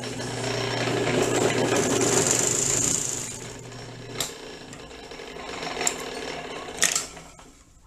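Domestic three-thread overlock (serger) running steadily as it stitches and trims a seam, stopping about three seconds in; its motor hum ends a second later, followed by a few sharp clicks.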